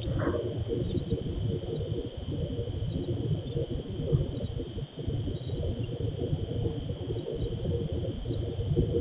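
Crickets chirring in a steady high band, over a low crackling rumble of noise from a CCTV camera's microphone.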